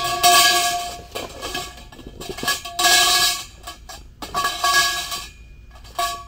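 A cardboard shipping box being torn open and unpacked: about five rasping rips, each with a squeal, about a second or so apart.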